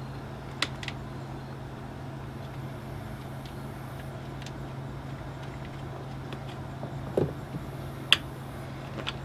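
A socket wrench on cap nuts under a car's hood: a few scattered sharp metallic clicks, the loudest about eight seconds in, and a duller knock about seven seconds in, over a steady low hum.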